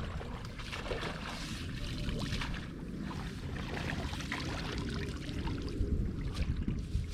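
Water splashing and trickling in short, irregular bursts.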